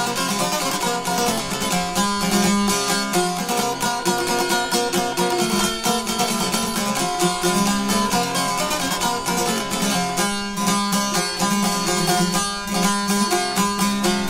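Instrumental break in Albanian folk music: long-necked lutes (çifteli and sharki) plucked in a fast, busy run of notes, with no singing.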